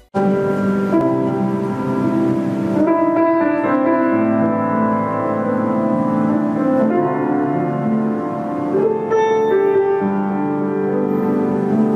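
Kawai GM-2 baby grand piano being played: a slow piece of held chords with a melody over them.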